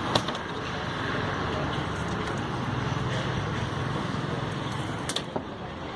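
A steady engine rumble from a running vehicle or machine, with a sharp click just after the start and another about five seconds in.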